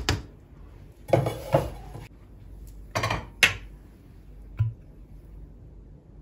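Clatter of a cooking pot and utensils being handled: a short burst of knocks about a second in, another around three seconds in, then a single light knock.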